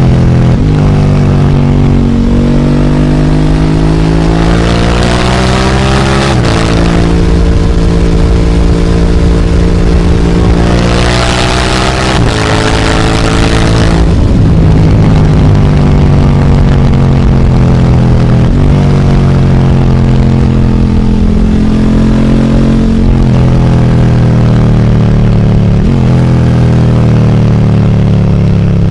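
KTM 1290 Super Duke R's V-twin engine running through a full Akrapovic exhaust, accelerating hard with the pitch climbing and dropping at each of several upshifts. In the second half it eases off, the pitch falling away with a few brief breaks. Wind rushes loudly on the microphone twice at the highest speeds.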